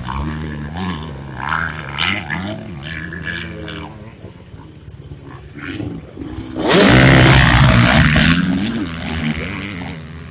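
Motocross bike engines revving up and down as riders work around a dirt track. About two-thirds of the way through, one bike passes close and is loudest, its engine rising in pitch as it accelerates, then fading away.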